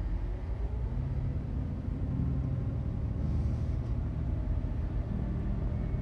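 Car driving past in traffic: a steady low rumble of engine and road noise.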